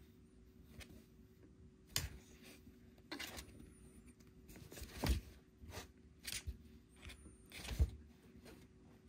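Kittens shuffling and scratching about inside a cardboard cat-house: irregular rustles and scrapes on cardboard, with a few louder ones about two, five and eight seconds in.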